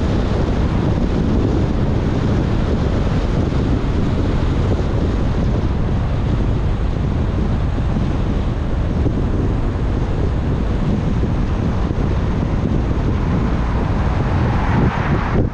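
Steady road noise of a car driving in heavy rain: tyres on the wet road and rain, with wind buffeting the microphone. A brighter hiss swells near the end.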